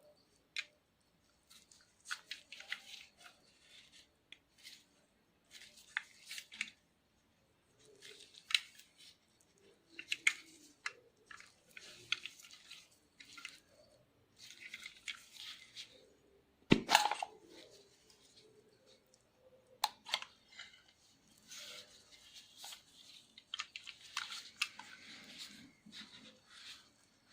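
Antique camera being handled: scattered short scraping and rubbing noises with small mechanical clicks, and one sharp louder click about 17 seconds in.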